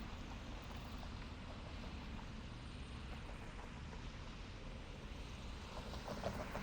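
City street ambience: a steady low rumble of traffic, with a few faint clicks about six seconds in.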